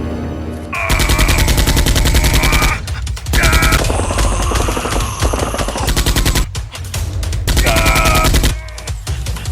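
Rapid automatic gunfire sound effect in three bursts, the first two a few seconds long and the last short near the end, over background music.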